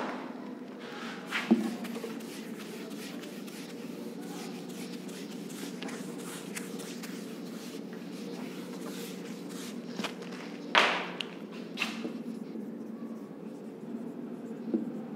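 Shuffling and handling at a whiteboard as it is wiped clean and a marker starts writing, with a few short knocks and scrapes over a steady low hum; the loudest is a scrape about eleven seconds in.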